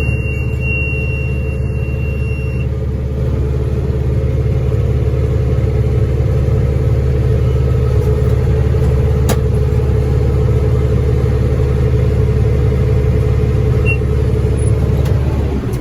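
Tractor engine running at a steady speed, driving a New Holland BR750 round baler, probably through the auto-wrap cycle. A high electronic beep is held for the first few seconds, and the engine note changes just before the end.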